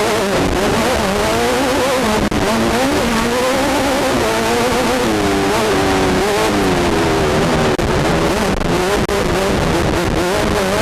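Class 10 off-road race car's engine heard from inside the car, its revs rising and falling constantly under heavy road and wind noise, with a few brief drop-outs in the sound.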